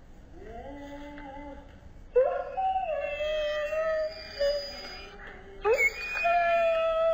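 Husky-type dogs howling: a short rising call, then two long drawn-out howls, each starting with a quick rise and slowly falling in pitch, the second beginning near the end.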